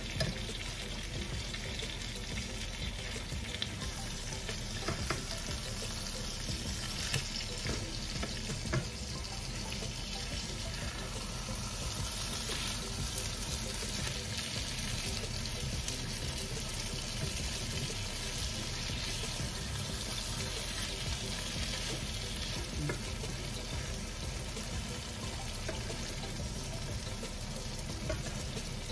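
Ground-pork hamburger patties sizzling steadily in oil in a nonstick frying pan, with a few light taps and scrapes of a spatula against the pan as the patties are pressed and turned.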